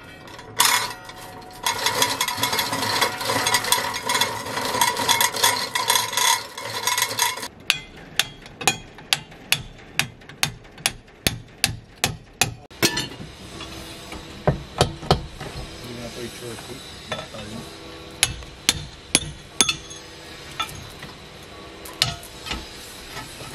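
Metal chain rattling steadily for about six seconds as a hanging wooden bell counterweight is lowered. Then a run of sharp hammer blows on its rusted iron straps follows, about two a second at first, and more irregular after that.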